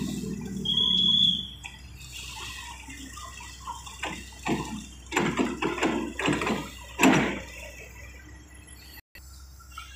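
Hydraulic excavator working: its engine runs hard, then eases off within the first second and a half, with a brief high squeal about a second in. About four seconds in comes a run of short, noisy rushing sounds, the loudest near the seventh second.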